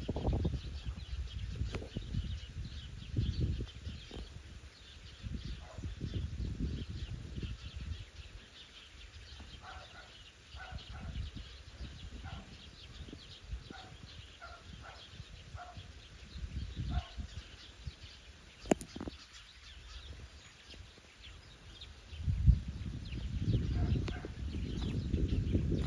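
Outdoor ambience: a gusty low rumble on the microphone, a faint steady high chirping, and short calls from a distant animal repeating every half second to a second through the middle and again near the end. One sharp click comes a little past halfway.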